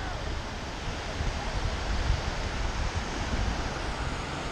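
Ocean surf washing onto the beach, heard as a steady rush, with wind buffeting the microphone in low rumbling gusts.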